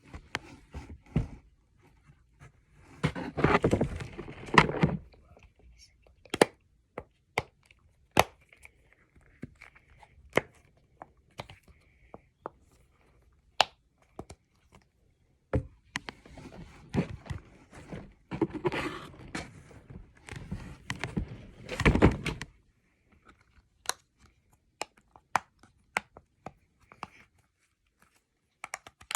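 Fidget toys being handled and played with: scattered sharp clicks and taps, with two longer stretches of crinkly, scraping handling noise, a short one a few seconds in and a longer one past the middle.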